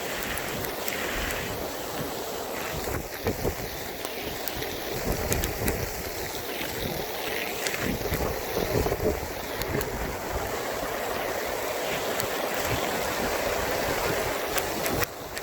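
Strong storm wind gusting and buffeting the microphone in uneven surges, with many scattered sharp ticks over the rushing noise.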